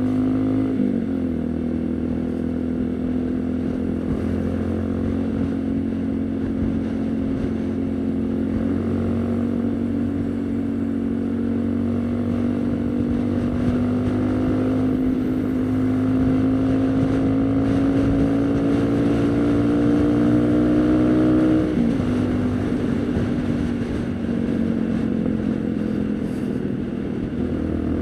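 Haojue NK150 motorcycle's single-cylinder 150 cc engine running under way. Its pitch climbs slowly for about twenty seconds and drops sharply twice, about a second in and again a few seconds before the end.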